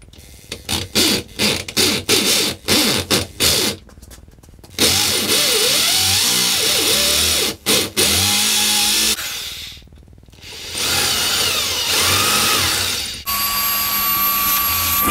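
Power drill with a 14mm masonry bit drilling into a concrete floor. It is pulsed in about ten short bursts at first, then runs in longer stretches under load, with a steady whine near the end.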